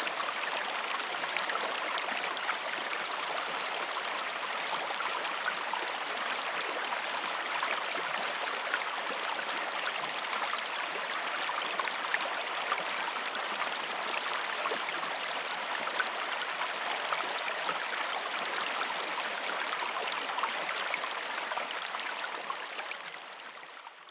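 Stream water flowing, a steady rushing babble that fades out near the end.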